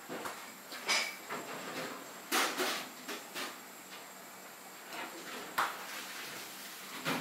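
Dishes and utensils clinking and knocking now and then, with a few sharp clatters, over a steady background hiss.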